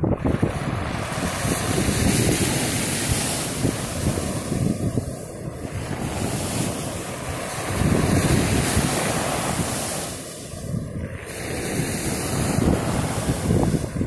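Sea waves breaking and washing up a pebble beach, swelling and easing every few seconds. Wind rumbles on the microphone throughout.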